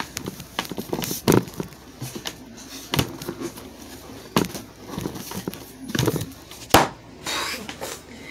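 Irregular thumps and knocks of knees, feet and hands on a wooden tabletop close to the phone, with a sharp bump and some rustling near the end as the phone is covered and handled.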